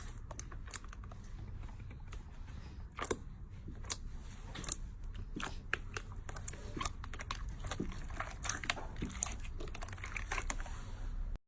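Slime being pressed and worked by hand, giving many irregular small crackles and clicks; the sound cuts off suddenly just before the end.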